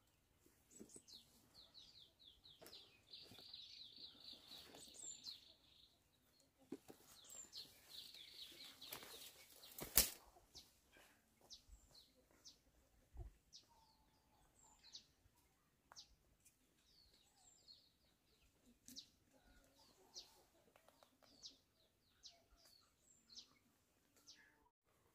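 Faint bird chirping: short, high, falling chirps throughout, with rapid trilling runs in the first ten seconds. A single sharp click comes about ten seconds in.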